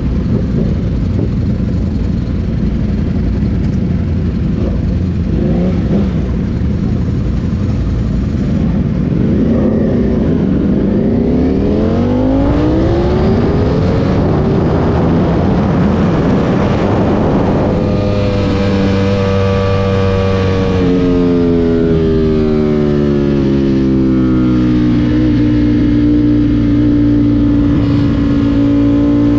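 Ducati Panigale V4 SP's V4 engine heard from the rider's seat, pulling hard with its pitch rising over several seconds, then dropping back and holding steady at cruising speed. Heavy wind rush on the microphone runs underneath.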